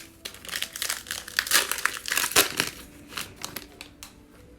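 Plastic trading card pack wrapper being torn open and crinkled by hand. There are about three and a half seconds of dense crackling, loudest midway, before it tails off.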